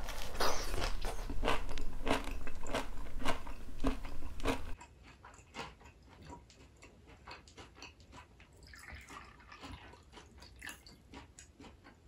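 A person chewing and biting food close to the microphone, with wet smacking and crunching clicks. About five seconds in it drops suddenly to faint scattered clicks and taps.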